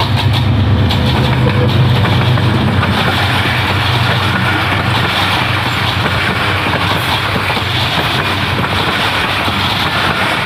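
A Pakistan Railways GE diesel-electric locomotive passes close by at the head of a passenger express. Its engine sound is strongest for the first few seconds, then gives way to the steady rumble of the coaches' wheels running on the rails.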